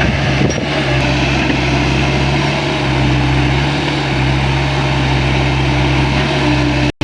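Excavator's diesel engine running steadily, a deep even drone that breaks off for an instant near the end.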